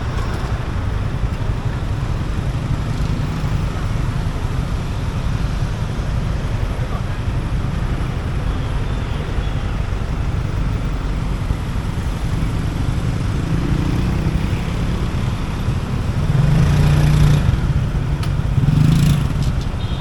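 Motorcycle engine running while riding, recorded on board, under a steady rumble of wind and road noise; the engine gets louder about three-quarters of the way through, as if accelerating.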